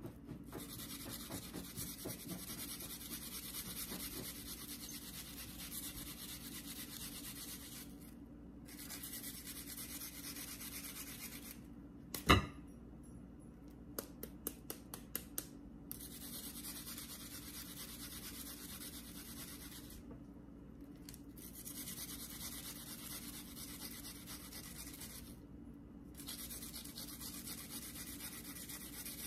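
Onion being grated by hand to squeeze out its juice: a steady scraping with short pauses. One sharp knock comes about twelve seconds in, followed by a quick run of light clicks.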